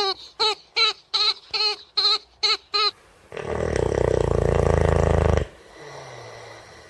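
A pet animal's short, high-pitched cries, about three a second and eight or so in a row, then a loud, rough, rattling growl lasting about two seconds.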